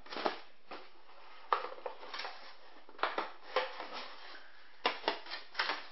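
Box packaging being handled and pried at while trying to free the figure's stand: a series of irregular sharp clicks, knocks and crinkles of plastic and cardboard.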